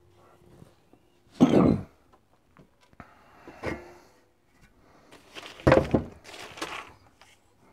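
Four dull thumps and rustles of handling in a small room, the loudest about a second and a half in, and two more close together near the end.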